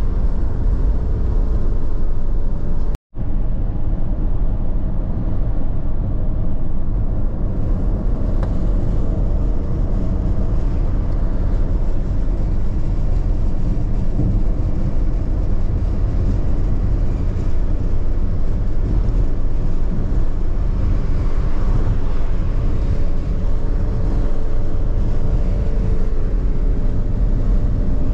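Steady road noise inside a moving car at motorway speed: a constant low rumble of tyres and engine. It cuts out for an instant about three seconds in.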